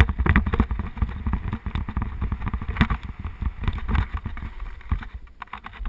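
Mountain bike descending fast over a rough, rocky dirt trail: a dense, uneven run of knocks and rattles as the tyres and frame hit stones and roots, thinning out a little near the end.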